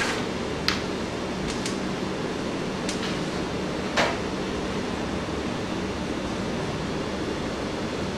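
Steady room noise, a low hum under an even hiss, broken by a few light clicks or taps, the sharpest just under a second in and about four seconds in.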